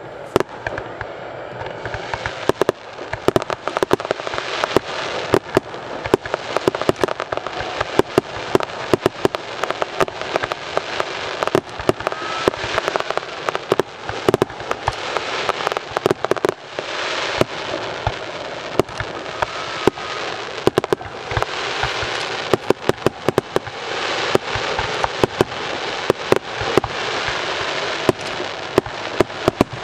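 Professional fireworks display: a rapid, unbroken series of sharp shell bursts and bangs over constant crackling, the crackle thickening into dense stretches about halfway through and again in the last third.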